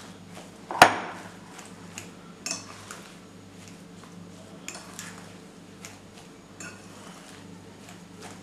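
A utensil clinking and scraping against a glass mixing bowl while mashing and mixing spiced potatoes: scattered sharp clinks, the loudest about a second in, over a steady low hum.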